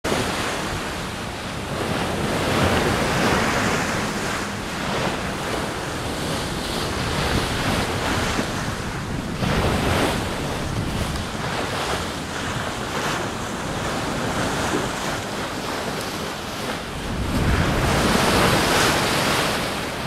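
Wind and sea rushing past a sailing yacht under way, with wind buffeting the microphone. The rushing swells and eases a few times, loudest near the end.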